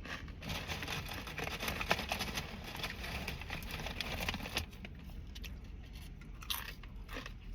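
Chewing crunchy food close to the microphone. Dense crunching fills the first four and a half seconds, then it gives way to quieter chewing with a few light clicks near the end.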